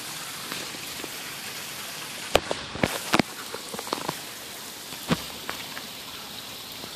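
Steady hiss of water, rain or trickling spring water, with a few sharp taps and knocks, the loudest coming in a cluster about two and a half to three seconds in and one more just after five seconds.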